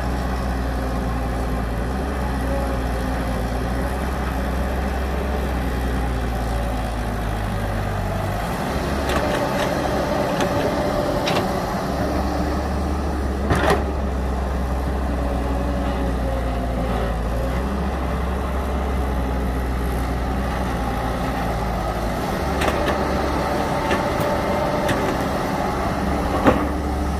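Heavy diesel engine of earth-moving machinery running steadily, its deep hum dropping away twice for a few seconds as the load changes. Sharp clicks or knocks come now and then, the loudest about 13 seconds in and again near the end.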